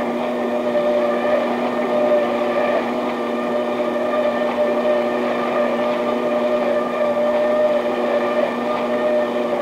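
Automated bread slicing and wrapping machinery running: a continuous machine hum with several steady tones over a rough mechanical noise, unchanging throughout.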